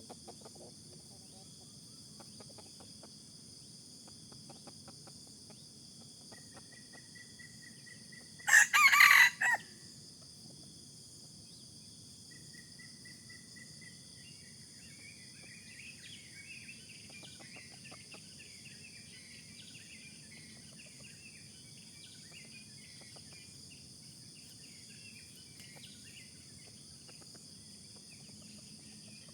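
A junglefowl rooster crows once, loud and short, about a second long, a third of the way in. Insects buzz steadily throughout, and smaller birds twitter softly in the second half.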